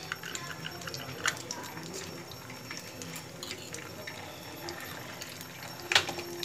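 Churro dough frying in hot oil: a steady sizzle with small crackling pops as fresh dough is pressed from a metal sev press into the pan. A sharp knock near the end.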